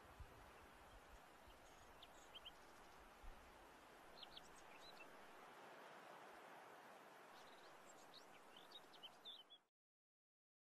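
Faint steady hiss with a few scattered, short, high bird chirps, more of them toward the end; the sound then cuts off abruptly to silence.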